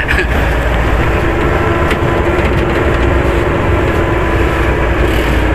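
Steady engine drone and road rumble heard inside a passenger vehicle's cabin, with a low steady hum running under it.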